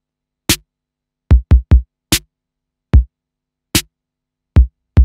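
Intro music made of electronic drum-machine hits: about nine separate hits with silence between them, deep thumps mixed with sharper hits, and three quick thumps in a row about a second and a half in.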